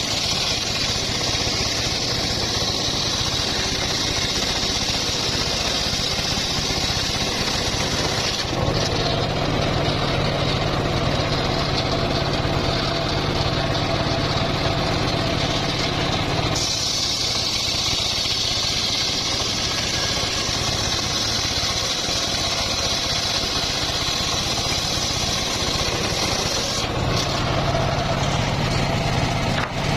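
Homemade engine-driven circular sawmill running continuously while sawing teak. A steady engine hum sits under a high, hissing blade noise that drops away about a third of the way in, returns just past halfway, and shifts again near the end.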